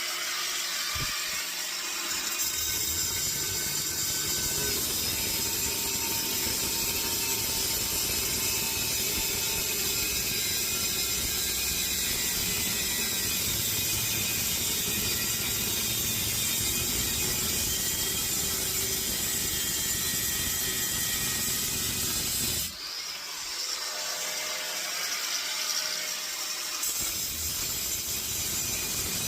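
A saw cutting through the steel casing of a compressor in a steady, continuous grinding rasp. It briefly eases off about 23 s in, then picks up again with less low rumble.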